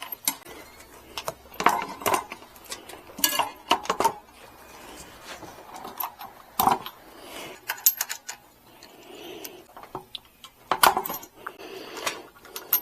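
Irregular metallic clinks and knocks of hand tools and loose metal parts being handled during e-bike assembly, with a few louder clanks.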